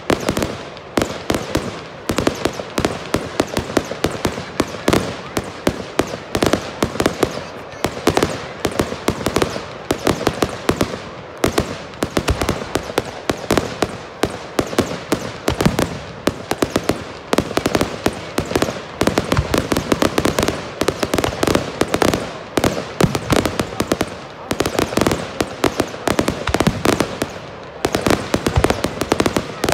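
Fireworks display: a dense, unbroken barrage of sharp bangs, pops and crackles, several a second, as comets shoot up and shells burst overhead.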